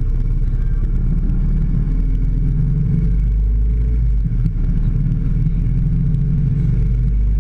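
A vehicle driving along a road: a steady, loud low rumble of engine and road noise, unchanging throughout.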